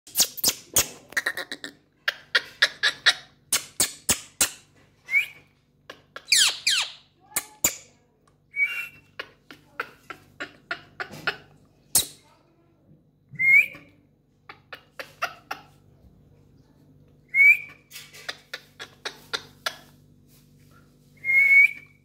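Caged Indian ringneck parakeet giving short, sharp calls about every four seconds, with a gliding whistle-like call near the start, among many quick sharp clicks.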